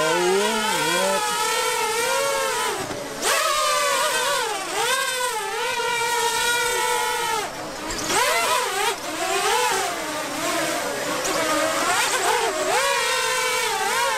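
Propellers of a small quadcopter drone in a spherical protective cage, a buzzing whine that keeps rising and falling in pitch as the drone changes speed in flight.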